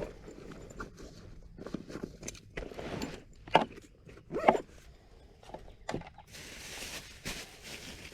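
Handling noises as gear and bait are got out: scattered rustles and clicks, two louder knocks about midway, and a steadier rustling near the end.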